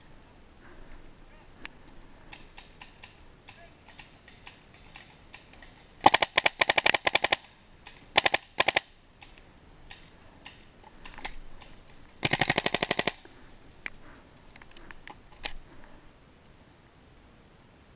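Paintball marker firing rapid strings of shots: a string of about a dozen shots over a second or so, a few more shots shortly after, and another fast string of about a dozen shots near the two-thirds mark, with faint clicks and rustling in between.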